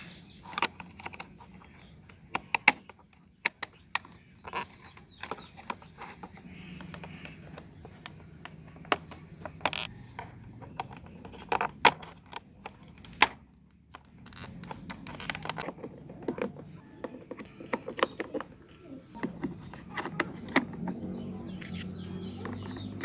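Irregular sharp metallic clicks and clinks from small bicycle parts and hand tools being handled, with now and then a scrape.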